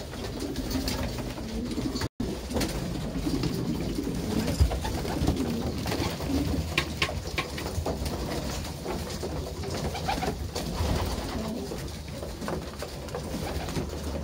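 Domestic pigeons cooing in their loft: a continuous low warbling coo with scattered short clicks. The sound cuts out for an instant about two seconds in.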